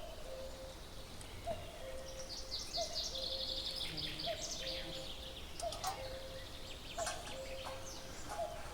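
Birds calling outdoors: a songbird gives fast, high, descending trills about two to five seconds in, over a low call, a short upward note running into a held tone, repeated about once a second.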